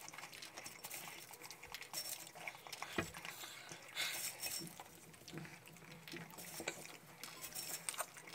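Faint eating sounds during a mukbang meal: soft chewing with scattered light clicks of a utensil or dish, the sharpest click about three seconds in.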